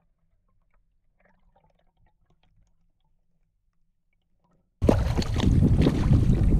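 Near silence with a few faint ticks, then about five seconds in a sudden loud rush of wind on the microphone and water splashing against a kayak hull on choppy sea.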